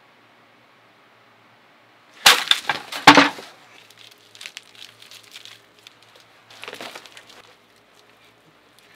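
Two loud crashes about a second apart, a wooden folding tray table being knocked over in a scuffle, followed by softer bumps and rustling of two people wrestling on a carpeted floor.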